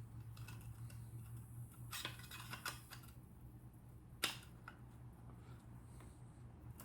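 Light metallic clicks and taps from handling the partly stripped action of a Daisy air rifle, with one sharper click about four seconds in, over a steady low hum.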